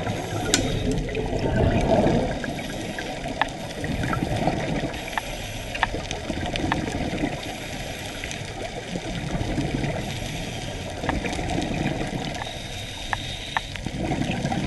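Underwater recording of a scuba diver's regulator exhaust: surges of bubbling exhaled air every few seconds over a steady water hiss, with scattered sharp clicks.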